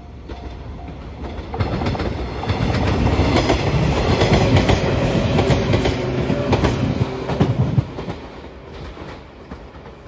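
JR 115-series electric train passing close by: wheels rumbling on the rails with clickety-clack from the rail joints, building from about a second and a half in, loudest in the middle, then fading as it moves away after about eight seconds. The level-crossing warning bell is dinging in the first second.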